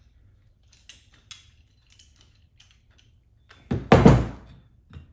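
Parts of a metal table microphone stand being handled as the pole is screwed into its heavy base: a few faint clicks and taps, then one loud thunk about four seconds in.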